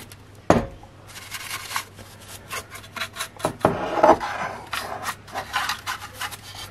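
Small brush sweeping dust off a preamp in short, irregular scratchy strokes, with a sharp knock about half a second in.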